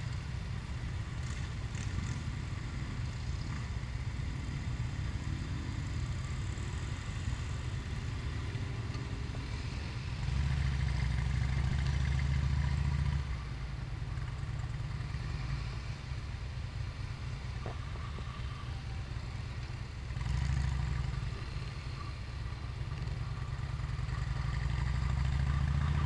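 Motorcycle engines idling and pulling away in a group, under the steady low rumble of the camera bike's own engine. That engine gets louder for a few seconds about ten seconds in, again about twenty seconds in, and climbs once more near the end as the bike moves off.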